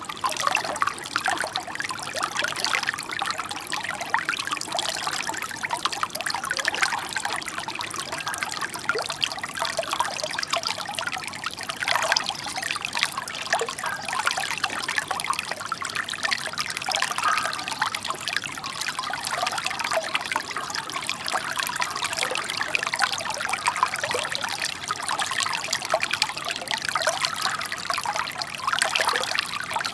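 Shallow brook babbling over stones, a steady trickle full of small, quick gurgles and splashes.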